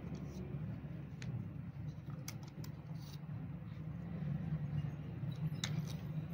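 Light clicks and taps of Montessori colour tablets being lifted out of their wooden box and set down on a cloth-covered table: a few sharp clicks a couple of seconds in and again near the end. A steady low hum runs underneath.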